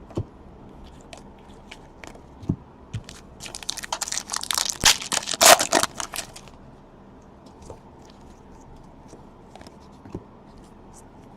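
Crinkling and tearing of plastic trading-card packaging being handled: a dense burst of about three seconds, loudest just before it stops, with scattered small clicks and taps around it.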